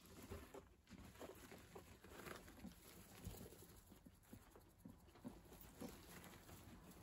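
Faint, irregular rustling and small clicks of guinea pigs moving through wood-shaving bedding and nibbling hay.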